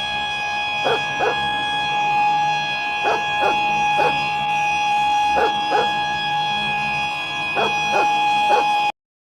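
Emergency alert alarm for a tsunami warning: a steady chord of held tones with short falling chirps, mostly in pairs, recurring every second or two. It cuts off suddenly near the end.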